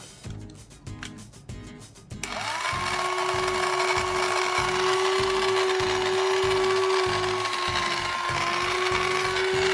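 Over background music, a toy kitchen appliance starts a steady, loud whirring about two seconds in, like a small blender motor spinning up and running at an even pitch.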